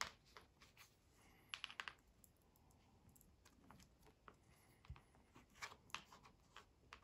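Faint small clicks and scratches of wire ends being hand-fitted onto the metal terminal tabs of a small brushed DC electric motor, a dry fit before soldering. There is a quick run of clicks about a second and a half in and a few more around six seconds in.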